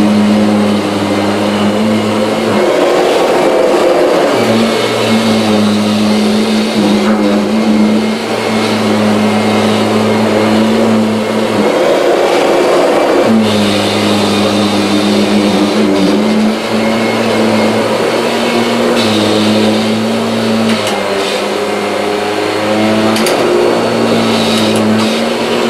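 Kirby G6 upright vacuum cleaner with a stiff oblique brush roll running on a rug: a loud, steady motor hum whose pitch dips briefly and recovers every few seconds.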